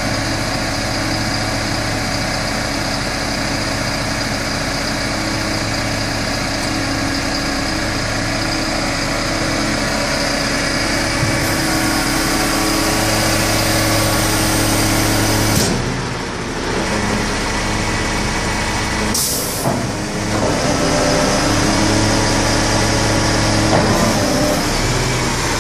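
A refuse truck's diesel engine idling steadily. A stretch of added hiss comes about halfway through, and a short sharp hiss about three-quarters of the way in.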